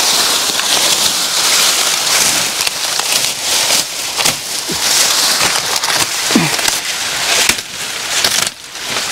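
Dense crackling, rustling noise: a steady hiss full of small clicks, easing off briefly near the end.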